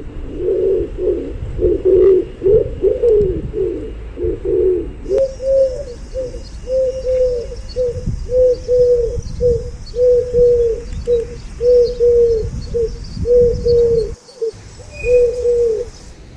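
Pigeons cooing: several overlapping, warbling coos at first, then a long run of short, evenly repeated coos at about two a second, breaking off briefly near the end. A low rumble runs underneath.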